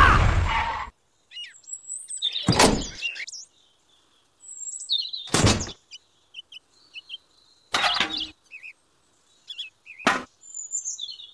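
Scattered bird chirps over near quiet, broken by four short knocks about two and a half seconds apart from small toy parts being handled. A loud vehicle-like noise cuts off about a second in.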